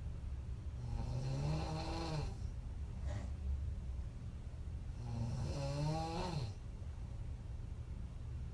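A woman snoring hard in deep sleep: two long, pitched snores about four seconds apart, over a steady low hum.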